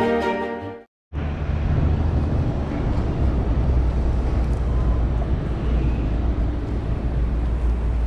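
Background music fades out in the first second. After a brief gap, steady outdoor city ambience with a strong low rumble takes over.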